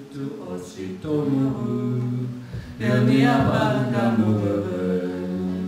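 A man singing a slow song with little or no accompaniment, holding long wavering notes; it grows louder about three seconds in.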